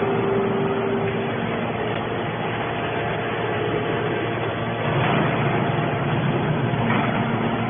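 Hydraulic steel scrap baler running: a steady mechanical din with a held tone that fades out about a second in, growing louder about five seconds in.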